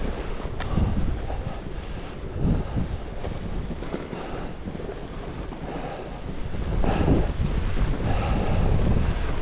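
Wind buffeting the microphone at skiing speed, a rumbling hiss that swells and eases, along with the scrape of skis carving turns on groomed snow.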